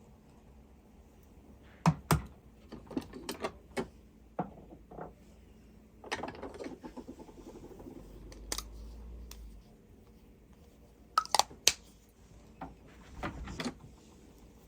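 Scattered light clicks and knocks of small hard objects being handled, with a denser rattling stretch about six seconds in and three quick sharp clicks near the end.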